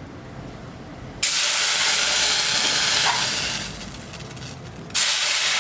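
Hot pan on the stove hissing loudly as it sizzles: a sudden burst starting about a second in that dies away, then a second burst near the end.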